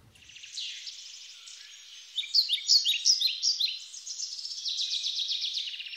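A songbird singing: quick chirps that fall in pitch, faint at first, louder from about two seconds in, and running into a fast trill near the end.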